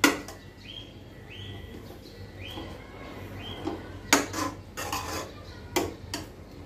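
Flat metal spatula scraping and clinking against a stainless-steel pan while stirring mixed vegetables. There is a sharp knock at the start, then quieter scraping and a few clinks about four seconds in and again near six seconds.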